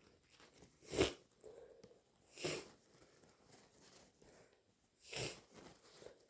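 Three short sniffs through a congested, snotty nose from a person with a heavy head cold, spaced a couple of seconds apart.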